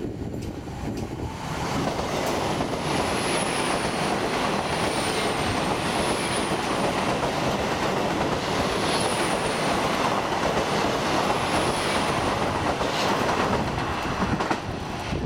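Hitachi IEP intercity train running through at speed without stopping: a steady rush of wheels on rail and running gear that builds about a second in and falls away near the end as the last coach passes. Faint, short, high squeals from the wheels come several times.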